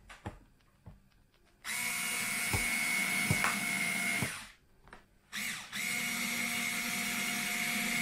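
Small cordless electric screwdriver running in two steady bursts of about two to three seconds each, with a short pause between them, driving the screws of a laptop's bottom cover back in. A few light clicks come before the first run.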